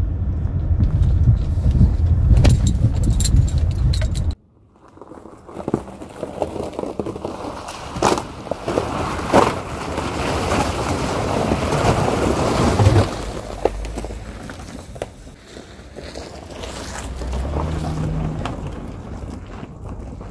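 First-generation Honda Ridgeline on an icy trail. Heard first from inside the cab: a low rumble with knocks and rattles, which cuts off abruptly about four seconds in. Then, from outside, its tyres crunch and splash through an icy, muddy puddle, loudest in the middle with several sharp knocks, and the sound eases as the truck pulls away.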